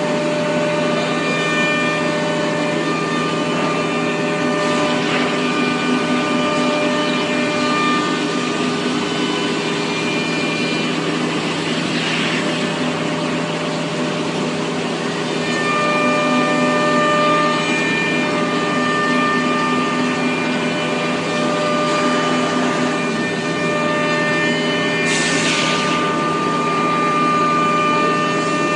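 Robot-loaded CNC machining cell running: a steady machine hum with several steady tones that drop out and return, and a short hiss about three-quarters of the way through.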